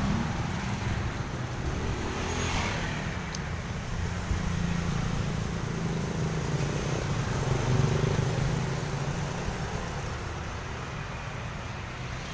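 Motorbike engine running at low speed with street traffic around it, a steady low hum that dies away over the last few seconds.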